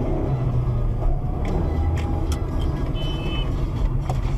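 Car engine and road rumble running steadily, with several short knocks and a brief high tone about three seconds in.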